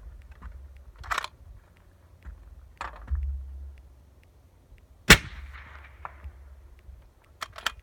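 A single shot from a 6.5 Creedmoor Accuracy International AXMC bolt-action rifle fitted with a Thunder Beast Ultra 7-inch .30-calibre suppressor, about five seconds in, with an echo trailing off after it; it meters at about 142 dB. A few quick clicks come near the end.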